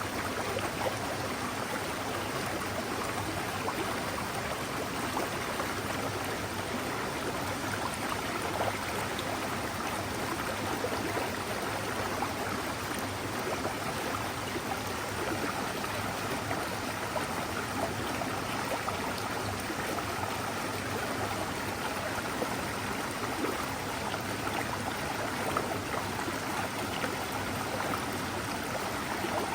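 A mountain stream flowing, a steady, even water sound with no breaks or changes.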